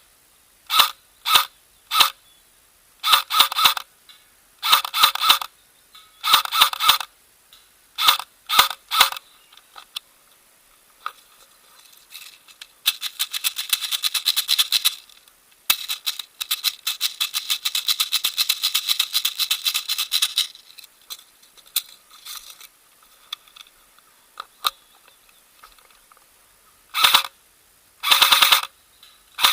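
Double Bell 813S airsoft electric carbine firing in short bursts of rapid clicking shots. Two longer, quieter strings of fully automatic fire come in the middle, and more short bursts come near the end.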